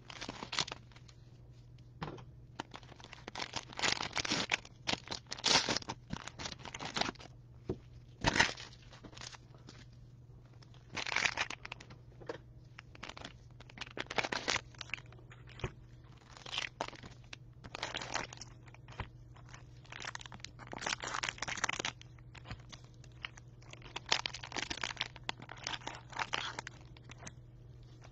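Cellophane wrappers of trading-card cello packs being cut open and handled: irregular bursts of plastic crinkling and tearing, some in quick clusters. A faint steady low hum runs underneath.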